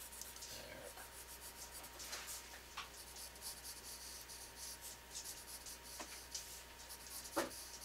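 Pen drawing short strokes on drafting paper: a run of faint, quick scratches, with one louder brief sound near the end.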